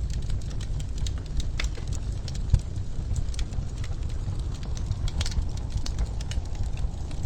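Wood fire crackling in a fireplace: scattered sharp pops and snaps over a steady low rumble, with one louder pop about two and a half seconds in.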